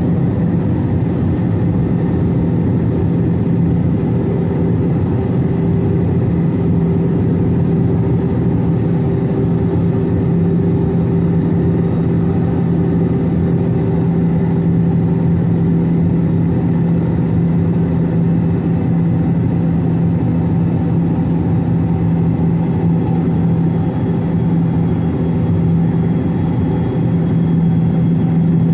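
Steady jet drone of an Airbus A321-211 in flight, its CFM56-5B engines and airflow heard from inside the cabin. It is a constant low hum with a couple of steady tones, with no change in level or pitch.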